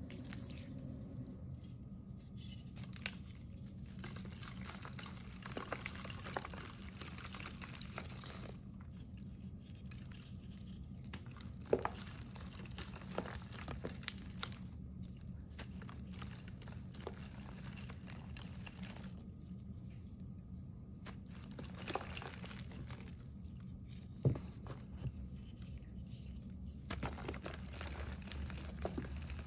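Hands crushing blocks of gym chalk, a soft crackling crunch of chalk breaking and powder crumbling in irregular clusters, with a couple of sharper snaps about 12 and 24 seconds in. A steady low hum runs underneath.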